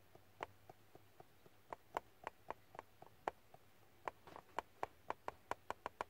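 Light taps and clicks of a box of ground coffee being shaken and knocked against the rim of a coffee maker's paper filter holder to tip the grounds out. The taps are scattered at first, then come quicker and more evenly, about three or four a second, in the second half.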